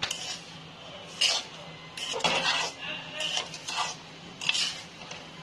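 A metal spoon scraping and clinking against a cooking pan while stirring the thick laddoo mixture, in a series of about six short scrapes.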